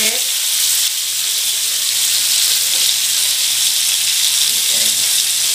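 Fish steak frying in hot oil and butter in a wok: a steady, even sizzle.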